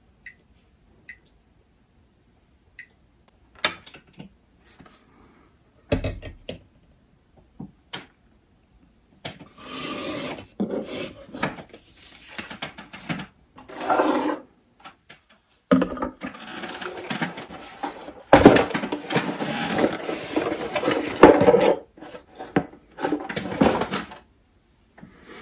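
Hard plastic parts of a CellBlok battery box being handled on a wooden table. A few faint clicks come first, then scattered knocks, then long stretches of scraping and rubbing. Several sharper knocks in the second half are the loudest sounds.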